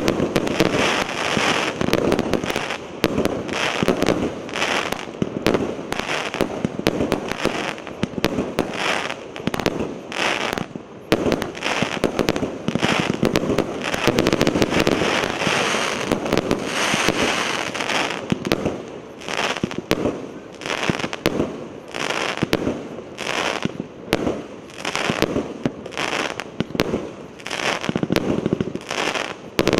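A 100-shot, 1.2-inch consumer fireworks cake (P7108 'Prometheus') firing in rapid succession: a continuous stream of launch thumps and aerial bursts, many shots a second, swelling louder about every second.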